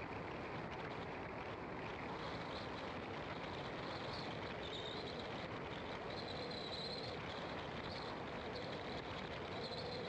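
Car on the move: steady road and wind noise, with a faint high buzzing that comes and goes several times.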